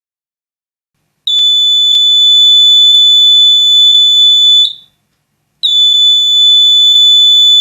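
Piezo buzzer of a homemade LM358 flame-sensor alarm sounding a steady high-pitched tone. It comes on about a second in, stops after about three seconds, then starts again after a short pause. The flame sensor has been triggered by a flame at its IR receiver.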